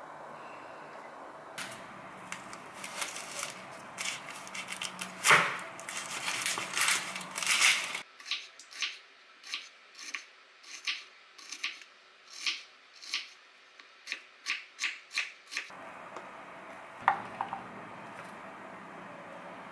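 Chef's knife slicing an onion on a wooden cutting board: a steady run of crisp cuts, about two a second, each ending in a tap on the board. Before it comes a few seconds of busier clattering and rustling with one loud knock, and near the end a couple of sharp clicks from a plastic container being handled.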